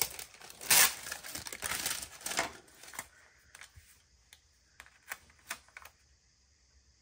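Sticker paper being handled and peeled: crinkling and rustling for about three seconds, loudest just under a second in, then a few light clicks and taps that die away about six seconds in.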